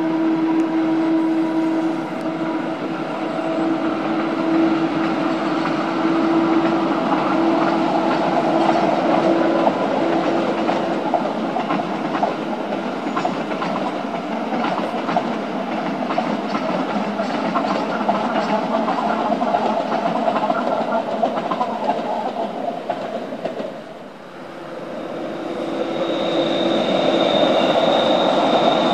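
Rhaetian Railway electric trains passing: a steady hum from the locomotive over rumbling wheels, with clicks over the rail joints. After a short break about 24 s in, a freight train of tank wagons rolls past with a high, steady wheel squeal.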